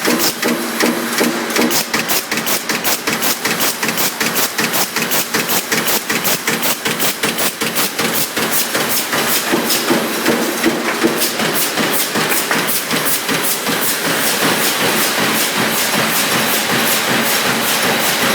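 CNC sheet-fed press line running, its press striking in a fast, even rhythm of about four to five strokes a second over a steady mechanical hiss.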